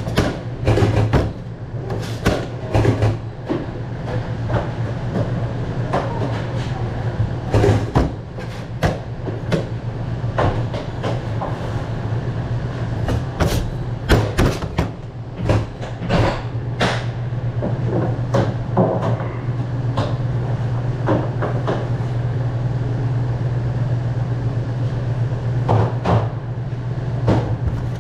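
Commercial kitchen noise: a steady machine hum throughout, growing a little louder past the middle, with frequent irregular clatter and knocks on top.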